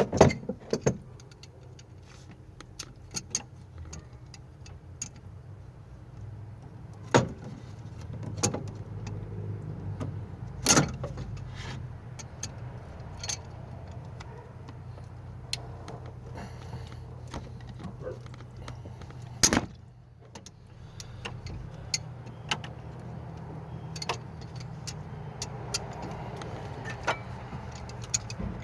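Metal hand tools clinking and knocking against engine parts while working a stuck part loose, in irregular clicks with a few louder knocks, over a steady low hum.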